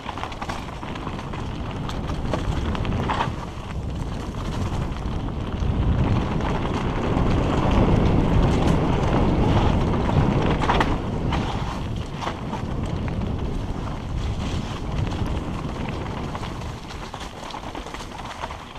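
Wind buffeting a helmet-mounted camera's microphone on a fast mountain-bike descent: a low rumble that swells in the middle and eases off near the end. A few sharp knocks from the bike on the rocks break through.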